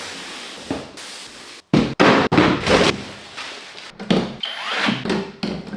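A quick run of knocks and thuds, as of hard objects being handled and set down, with abrupt cuts between them.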